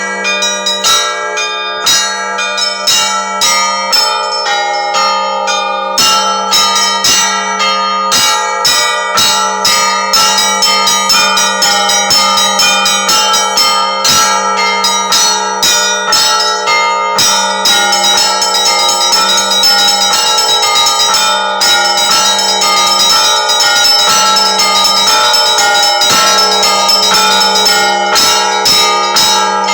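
Russian Orthodox church bells ringing: many smaller bells struck in quick, dense patterns over the steady deep hum of a large bell. The ringing thickens and grows fuller about halfway through.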